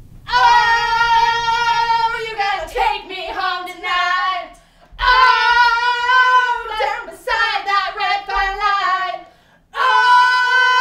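Loud female singing in long held notes, in three phrases with short breaks between them.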